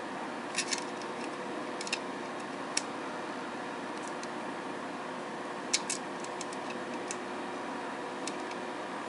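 Small sharp plastic clicks and taps as the parts of a snap-together model airliner are handled and pressed together, about half a dozen, the loudest a little before the middle, over a steady background hiss.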